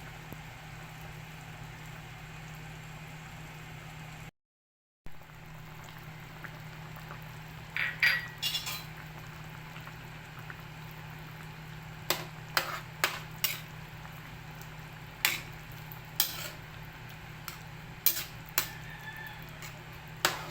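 A pan of fish sarsiado simmering, with a steady low hum under it. From about eight seconds in, a metal utensil clinks against the pan or dish, a cluster and then about ten single clinks a second or so apart. The sound drops out completely for a moment a little after four seconds.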